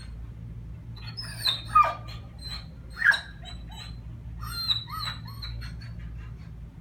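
Dog whining and whimpering in a series of short, high cries that slide in pitch, the loudest about two and three seconds in.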